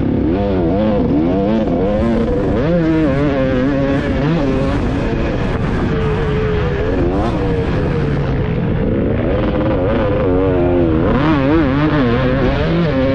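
A 300cc two-stroke motocross bike's engine under load, revving up and falling back over and over as the rider works the throttle through corners and over the bumps of the track.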